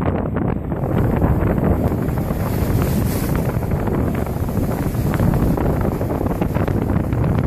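Strong wind buffeting the camera microphone: a loud, steady low rumble full of quick crackles.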